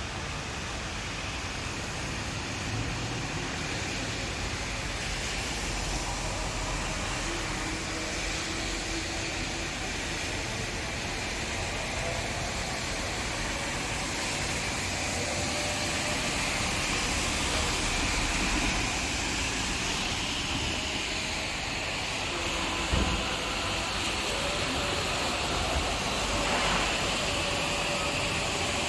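Steady rain and wind making an even rushing hiss with low rumble, with a single brief knock about 23 seconds in.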